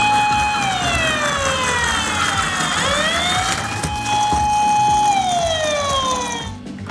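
Toy ambulance's electronic siren wailing: the pitch holds high, slides down, climbs back up, holds, then slides down again and cuts off near the end.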